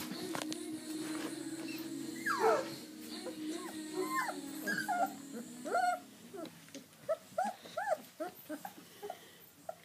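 Husky puppies whimpering and squeaking: short high cries that rise and fall in pitch, one longer falling whine early on, then coming quicker, several a second, through the second half.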